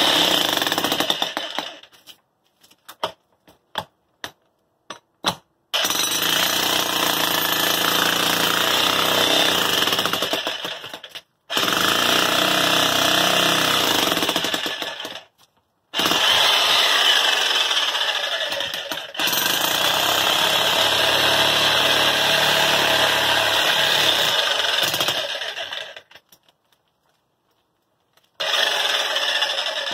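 Corded electric jackhammer chiselling into the concrete footing around a steel fence-post bracket. It runs in long bursts of several seconds, stopping briefly between them, with a few light clicks in the pause near the start.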